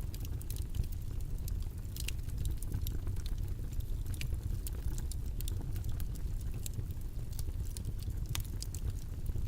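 Steady, deep background noise of a white-noise study track, with many faint scattered clicks and crackles over it.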